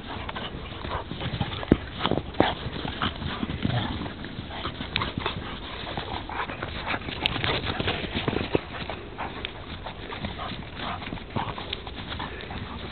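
A Wirehaired Vizsla and a Spinone Italiano play-fighting in snow: scuffling, jaw snaps and dog noises, with many irregular sharp clicks and knocks. The loudest come about two and two and a half seconds in.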